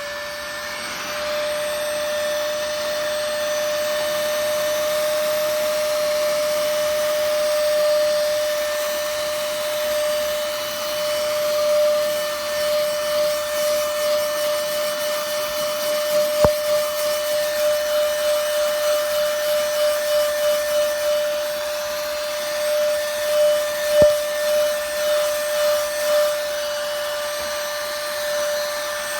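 Cordless handheld mini car vacuum cleaner running with a steady motor whine. From about the middle its sound swells and fades rhythmically, about once or twice a second, as it is worked, with two sharp clicks.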